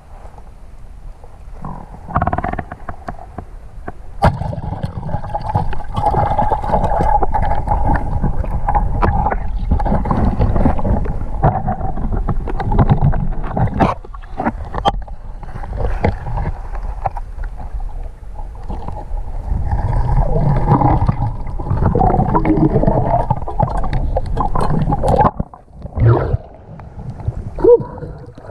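Muffled underwater rumble and water noise picked up by a submerged camera as a spearfisher swims, broken by many scattered clicks and knocks. Near the end the camera breaks the surface with splashing.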